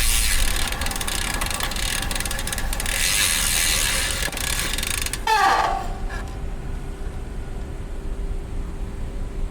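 Rear freehub of a DT Swiss ARC1100 DICUT wheel (star-ratchet hub) buzzing fast while the road bike coasts. About five seconds in a brief squeal falls sharply in pitch, and the buzz gives way to quieter road noise.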